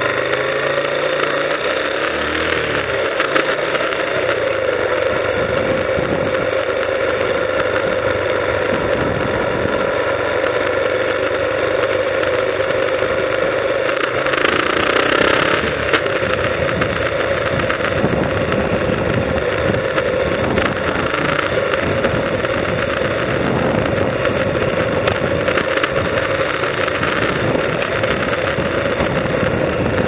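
Motorcycle engine running steadily as the bike rides along at low speed, picked up by a bike-mounted camera, with a brief louder rush of noise about halfway through.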